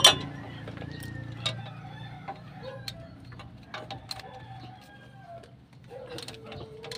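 Sharp, scattered metallic clinks and clicks of a ratchet and wrenches working the bolts of a van's front upper control arm. Chickens cluck and call in the background, with one longer even call near the end.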